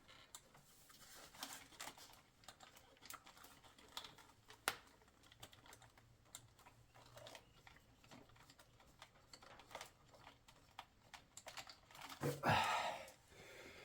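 Faint, irregular small clicks and taps of hand tools and parts being worked in an engine bay, with a louder scraping rustle about twelve seconds in.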